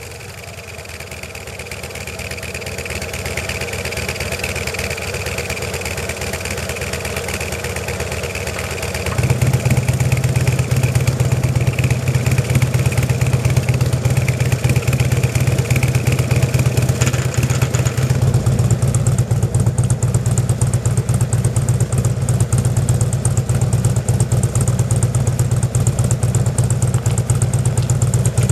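Harley-Davidson Street Glide's V-twin running through its aftermarket mufflers fitted with a one-off silencer baffle. It builds gradually at first, then gets sharply louder with a strong low throb about nine seconds in, and changes again about eighteen seconds in.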